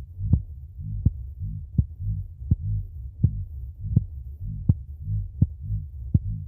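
Heartbeat sound effect: a steady, even rhythm of low thumping beats, with a sharp click recurring about every three quarters of a second.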